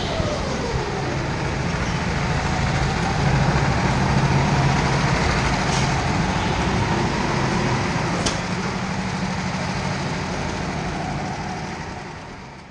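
Indoor rental go-kart running with a steady low drone, slowing from track speed into the pit lane, with a whine that falls in pitch in the first second and a couple of short clicks later. The sound fades out near the end.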